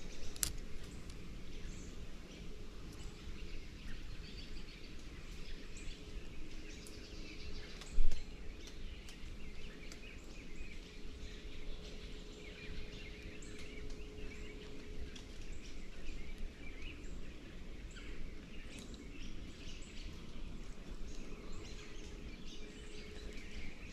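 Rain falling in woodland, a steady hiss with scattered drips and ticks of drops on leaves, and one brief loud thump about eight seconds in.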